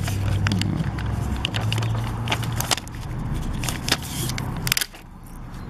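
Plastic sticker sheet and puffy stickers crackling and clicking as they are handled, peeled off and pressed down, over a steady low hum.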